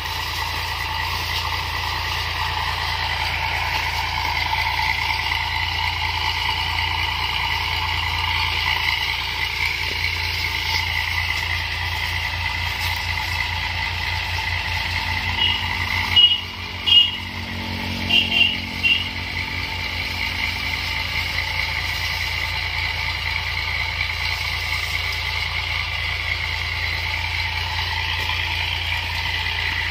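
Engine of a hose-fed orchard power sprayer running steadily under load, pumping spray out to the hose. About halfway through there is a short cluster of brief, louder high chirps and knocks.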